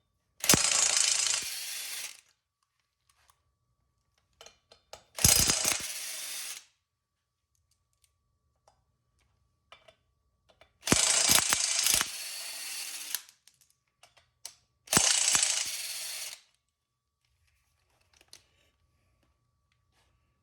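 Impact wrench hammering in four separate bursts, each about one and a half to two seconds long, loudest at first and then quieter, as it undoes the rear sprocket bolts threaded into the hub.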